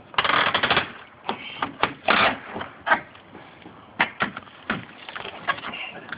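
Irregular knocks, clicks and scraping from a pry bar working apart an old wooden window's trim and frame, with a dense clattering stretch near the start and another about two seconds in.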